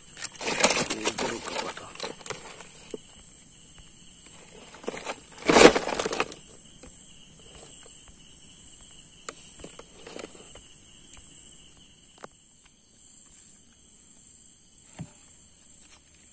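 Night insects trill steadily at two high pitches. Over them come two bouts of loud rustling and knocking, the first about half a second in and lasting about two seconds, the second brief, around five and a half seconds in. These are the sounds of a freshly caught mangrove jack being handled on a plastic sheet.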